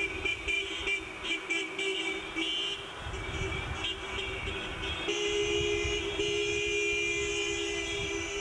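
Car horns tooting from cars driving past, short repeated beeps at first, then a horn held steadily from about five seconds in, over the low rumble of passing traffic.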